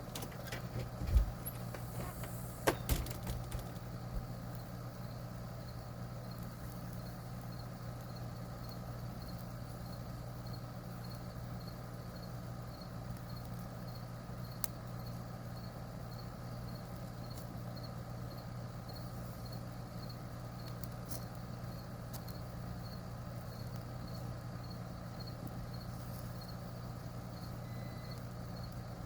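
A steady low mechanical hum, with a faint regular high ticking about twice a second. There are a few sharp knocks and clatters in the first three seconds.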